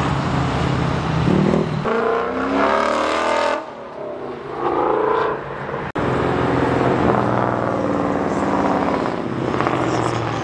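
A lifted square-body pickup's engine driving past and revving up, its pitch rising about two seconds in. After an abrupt cut near the middle, a Ford Mustang's engine accelerating past in road traffic.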